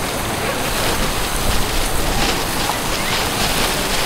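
Chorizo sausages and chicken sizzling on a steel grill grate over a freshly lit charcoal and wood fire: a steady hiss with small crackles.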